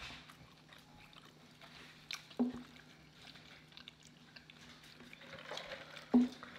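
Faint eating and mouth sounds at a close microphone: scattered small wet clicks and two short soft knocks, over a low steady hum.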